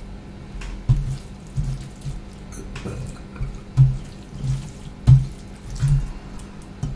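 A hand mixing and pressing rice with runny dal and curry on a steel plate: wet squelching with a run of soft, irregular thuds.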